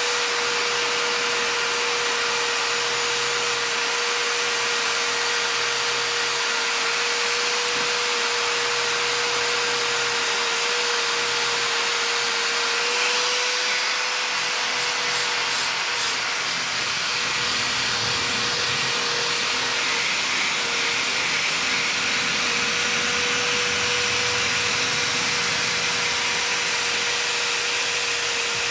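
A small handheld power tool running steadily with a constant whine as it sands the bike parts, with a few brief ticks about halfway through.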